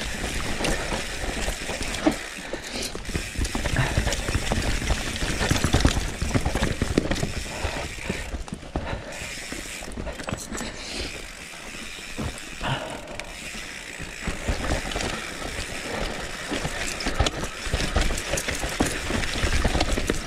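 Mountain bike descending a rough trail: the rear freehub ratchet buzzes and the chain and frame clatter over bumps, over a steady low rumble of tyres and wind.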